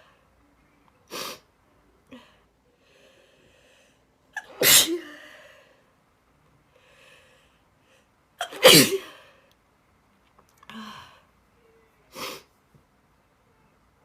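A girl sneezing again and again: a short sneeze about a second in, two loud full sneezes about five and nine seconds in, and two smaller ones near the end. Faint breathy in-breaths come between the sneezes.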